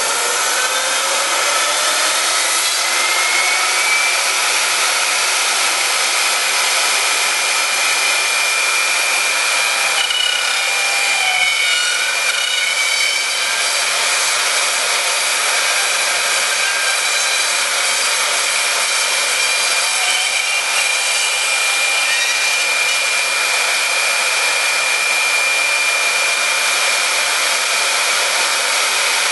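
High-speed router spindle on an industrial robot arm milling a block: a steady high whine over a loud hiss of cutting. The whine rises in pitch over the first few seconds, then holds steady.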